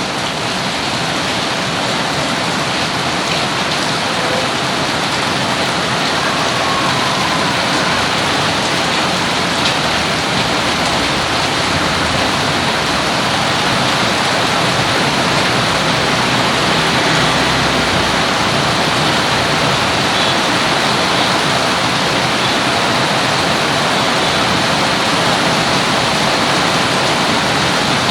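Heavy rain falling steadily in a dense, even downpour.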